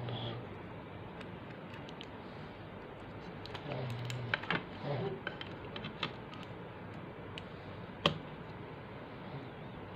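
A power bank's replacement battery pack being fitted into its plastic case by hand: scattered light clicks and rustling, busiest in the middle, with one sharp click about eight seconds in, over a steady hiss.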